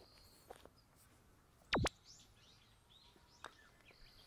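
Quiet outdoor ambience with faint bird chirps, broken by a sharp double click a little under two seconds in and a small click near the end.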